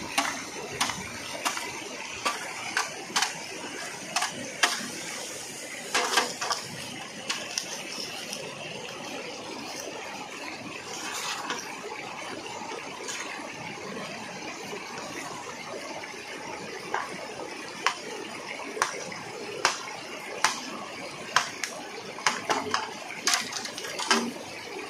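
A stream running steadily, with irregular sharp knocks and cracks as a long dry-cut bamboo pole and bamboo debris are handled.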